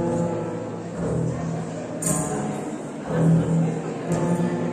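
Double bass bowed (arco), playing long low sustained notes that change pitch every second or so. A brief bright jingle sounds about two seconds in.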